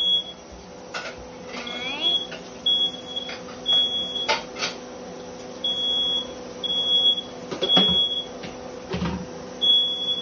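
Kitchen smoke alarm sounding: a high, steady beep repeated in groups of three with a pause between groups, the temporal-three alarm pattern. A few sharp clicks and knocks of kitchen things come in between.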